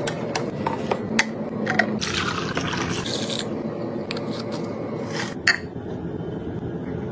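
Handling noises: several sharp clicks and knocks, a scraping rustle lasting over a second from about two seconds in, and a louder click about five and a half seconds in, over a steady low hum.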